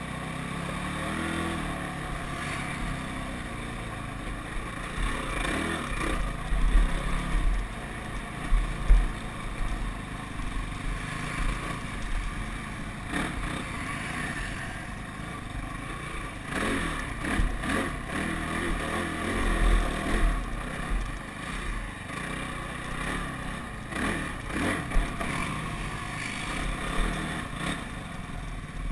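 ATV engine running with the revs rising and falling as it rides a rough dirt trail, with low thumps and several sharp knocks and rattles from the machine going over bumps.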